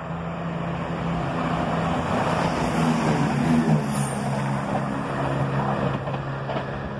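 Diesel passenger train passing close along a station platform: engine drone and wheel-on-rail rumble build up, peak as it goes by about three to four seconds in, then drop slightly in pitch.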